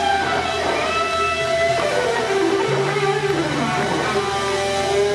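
Live blues-rock band playing an instrumental passage, electric guitar to the fore with notes bent up and down over held bass notes that step up in pitch about halfway through.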